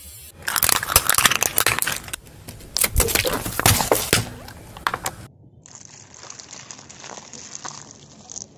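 Car tyre rolling over and crushing small objects: dense crackling and crunching. About five seconds in the sound cuts off suddenly to a quieter stretch of faint crackles and squelches.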